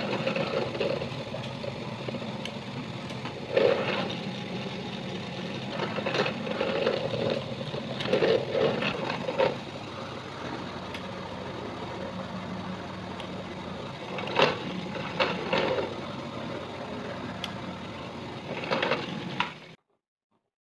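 Benchtop drill press motor running steadily, with a louder, rougher surge each time the bit is fed down into the plywood, five or six times. The sound cuts off shortly before the end.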